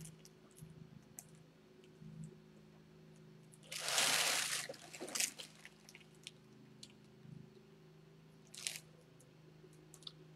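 Handling noise as a football helmet is turned over in the hands: scattered light clicks and taps, a loud rustle lasting about a second about four seconds in, and a shorter one near the end, over a steady low hum.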